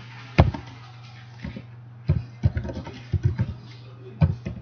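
Computer keyboard typing in short irregular bursts of keystrokes, each with a dull thump, over a steady low hum.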